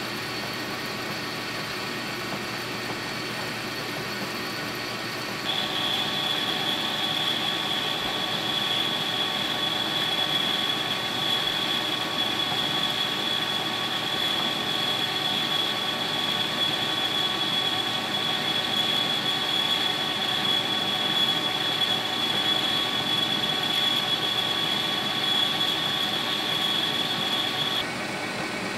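Metal lathe running steadily, spinning a brass bushing as it is drilled and then cut, with a constant high whine from the machine's drive. About five seconds in the sound steps louder and the whine drops slightly in pitch, and it changes again just before the end.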